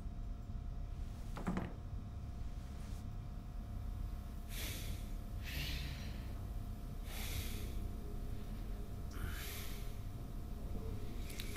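A man breathing hard through his nose: four loud, hissing breaths about a second and a half apart, over a low steady rumble. A short knock comes about a second and a half in.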